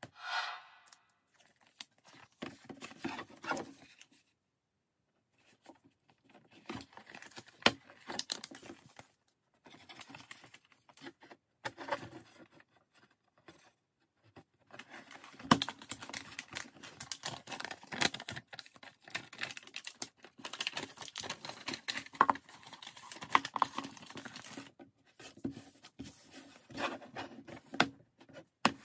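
Rustling and crinkling of sheet material with small taps and scrapes, as a self-adhesive magnetic foil sheet is handled, its backing peeled, and the sheet pressed onto a fibreboard panel.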